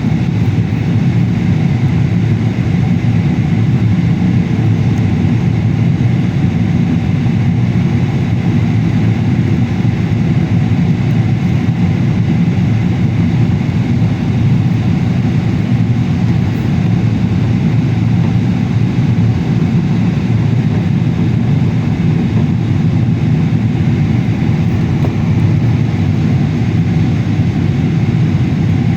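Steady cabin noise of an airliner: the engines and the rush of air, heard from inside the passenger cabin, running evenly with no change.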